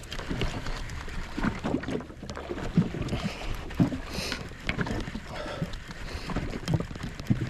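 Sea water slapping and gurgling irregularly against the hull of a drifting jet ski, with the handling noise of a fishing reel being wound in.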